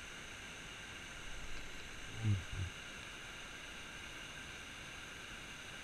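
Steady hiss of river water spilling over a low-head dam's concrete spillway, with two short low sounds a little over two seconds in.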